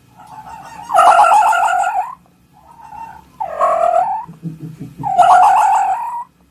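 A fox calling three times. Each call is a loud, wavering cry about a second long, with the calls a second or so apart.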